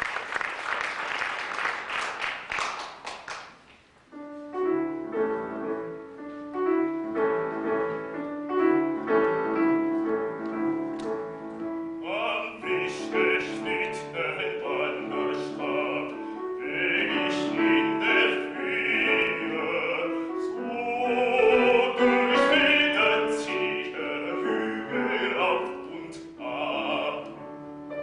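Audience applause dying away in the first few seconds, then a piano introduction starts. A baritone voice comes in about twelve seconds in, singing a German art song over the piano accompaniment.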